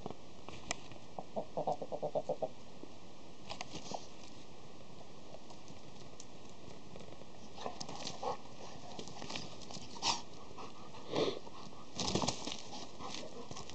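A rooster and a Labrador scuffling on dirt: scattered scuffs and pecks, with a quick run of soft beats about two seconds in. Near the end the rooster's wings flap hard in a short flurry as it leaps at the dog, the loudest part.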